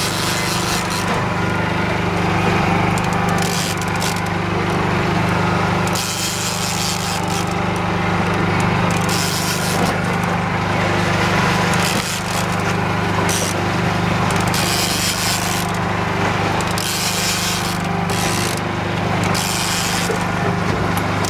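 Small outboard boat motor running steadily, with a rough hiss over it that swells and fades every second or two.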